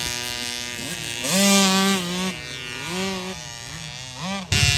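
Youth mini motocross bike's small engine buzzing, its revs rising, holding and dropping back about three times as the throttle is worked over a dirt jump. Near the end a louder, rougher noise cuts in suddenly.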